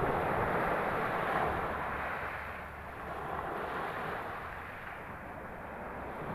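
Sea waves surging and washing onto the shore, mixed with wind buffeting the microphone. The noise swells and ebbs, dipping twice before rising again near the end.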